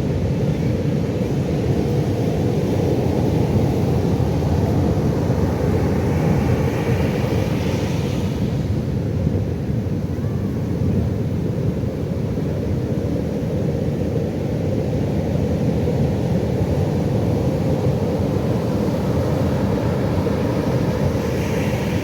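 Pacific Ocean surf: a steady low rumble of breaking waves, with a hissing wash of a wave swelling and fading about seven seconds in and another near the end.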